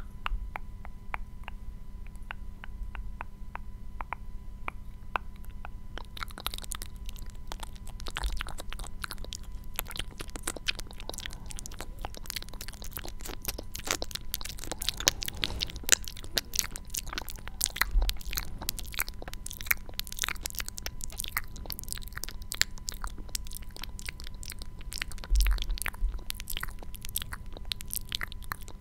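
Close-miked ASMR clicking and crackling: crisp little clicks, sparse at first and much denser and louder from about six seconds in, with a few soft low thumps. Under them runs a steady electrical hum from a failing microphone.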